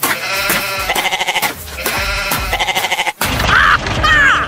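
Upbeat cartoon background music with a steady beat and a wavering melody. About three seconds in it breaks off abruptly, and louder sound effects with quick sliding whistle-like tones take over.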